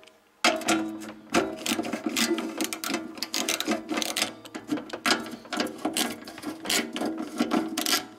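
Socket ratchet clicking rapidly as 10 mm bolts holding a converter's cover plate are worked loose, starting about half a second in.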